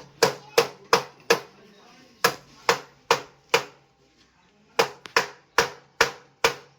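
Metal hammer strikes, about three a second in three runs of four to six blows with short pauses between, as a steering-head bearing cup is tapped into a motorcycle's head tube.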